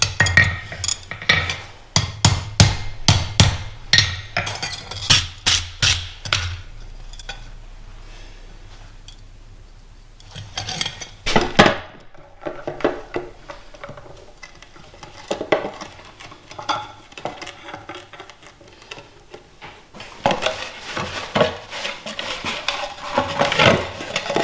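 Hammer blows on steel, a quick run of sharp strikes for about six seconds, a few more a little later, then lighter metal clinks and rattling of the tongs near the end.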